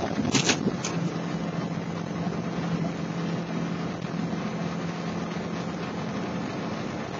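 Vehicle engine drone and road noise heard from inside the cab while driving, a steady hum with a few brief clicks about half a second in.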